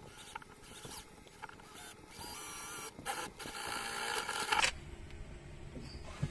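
Makita cordless drill running a twist bit into the cab's painted pillar: a whine with grinding that grows louder, breaks off briefly twice, and cuts off suddenly about three quarters of the way through.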